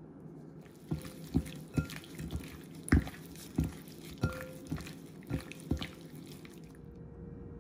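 Raw shrimp being mixed by hand with olive oil and seasoning in a glass bowl: about ten irregular wet squelches and slaps, the loudest about three seconds in.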